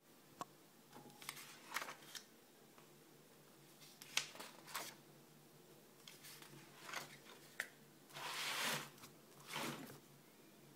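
Pages of a spiral-bound paper sketchbook being turned and handled: scattered short rustles and clicks, with a longer paper rustle about eight seconds in.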